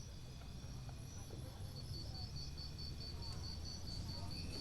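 Insects chirping in a steady pulsed rhythm, about four to five pulses a second, over a low steady rumble.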